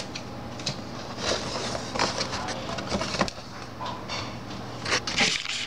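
Packaging being handled and opened: irregular rustling with scattered light clicks and knocks, over a faint steady low hum.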